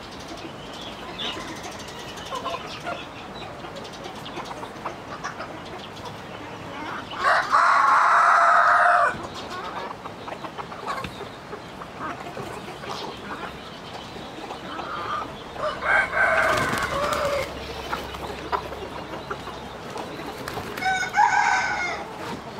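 Chickens clucking in a coop, with a rooster crowing loudly once, for about two seconds, around seven seconds in. Shorter loud fowl calls come later, around sixteen and twenty-one seconds.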